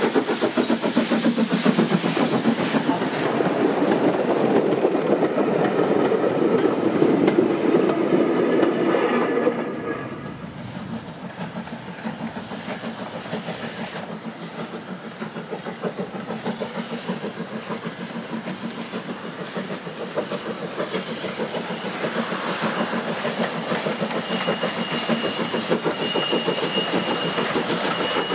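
Great Eastern Railway Class Y14 0-6-0 steam locomotive under steam, its exhaust beating in a quick even rhythm with the clack of the wooden four- and six-wheeled carriages as it passes close by. About a third of the way in it drops suddenly to a fainter, more distant beat. A thin, steady high tone joins near the end.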